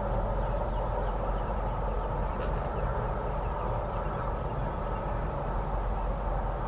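Steady low rumbling background noise with no clear single source, and a faint short sound about two and a half seconds in.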